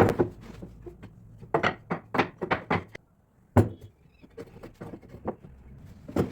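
Irregular wooden knocks and thuds as boards and drawer parts are handled and set in place, about a dozen separate strikes with a brief moment of silence about three seconds in.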